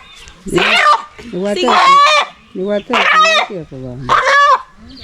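A chicken squawking loudly in distress as it is held after being caught: four harsh, high calls about a second apart.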